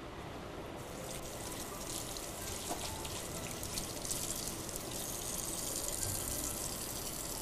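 Water running, starting suddenly about a second in and going on steadily as a hiss.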